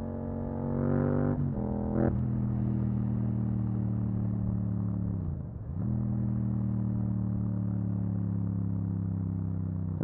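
Yamaha MT-07's parallel-twin engine through an Akrapovič exhaust, on the move. It revs up for about a second and a half, drops with a gear change, then runs at steady revs, with a brief dip and return about five and a half seconds in.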